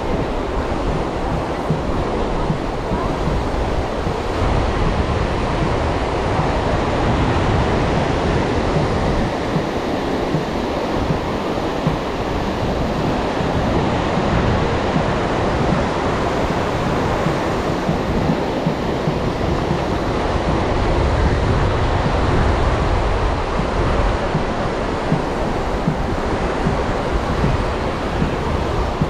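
Ocean surf washing onto a beach: a steady, even rush of waves that slowly swells and eases, with wind buffeting the microphone.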